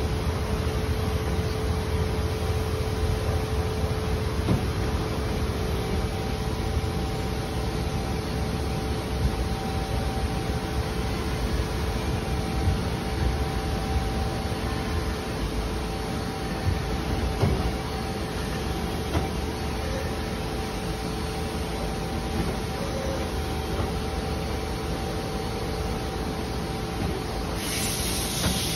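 Hwacheon Hi-Tech 200A CNC lathe running under power: a steady hum and rumble with two held tones, and a few light knocks as the turret moves.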